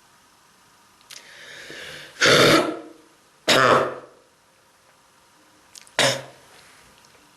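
A person with strong bronchitis coughing three times. The first cough follows a drawn-in breath, and the third, a few seconds later, is shorter.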